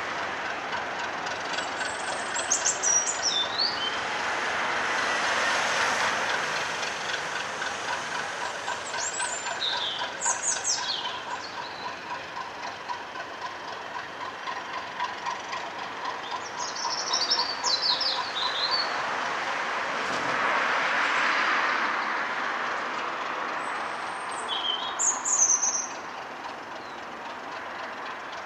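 BR Class 37 diesel locomotive's English Electric V12 engine running steadily, swelling in loudness twice. Small birds chirp in short high falling bursts four times over it.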